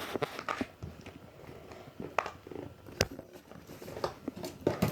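Square silicone pop-it fidget toy being pressed, its bubbles giving irregular soft pops and clicks, one sharper pop about three seconds in.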